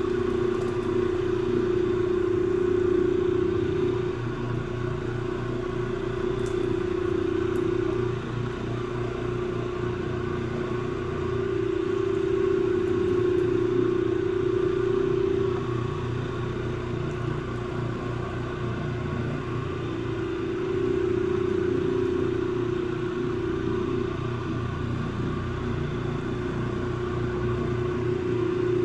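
Electric rotary floor machine running with a cleaning pad on carpet, a steady motor hum whose level swells and eases every four seconds or so as the machine is worked back and forth.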